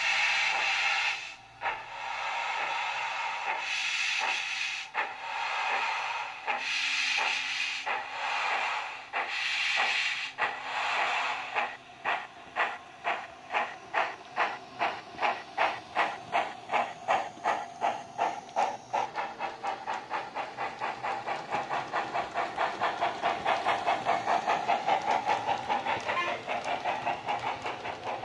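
Recorded steam-locomotive exhaust from a Wheeltappers DCC sound decoder in a Hornby 'Princess Elizabeth' model, played through its small megabass speaker. Heavy hissing chuffs come about once a second at first, then about twelve seconds in the beat quickens to several a second as the train gathers speed.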